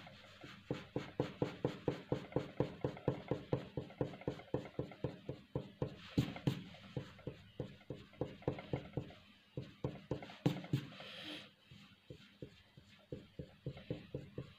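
Pencil shading on paper: rapid back-and-forth strokes of graphite scratching over the sheet on a wooden table, about four or five strokes a second. The strokes pause briefly with a short rustle near the end, then resume more slowly.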